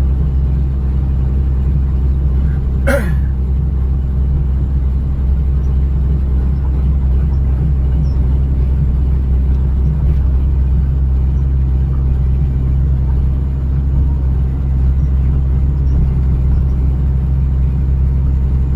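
John Deere 200LC excavator's diesel engine running steadily, heard from inside the cab as the machine works. A brief sharp sound cuts in about three seconds in.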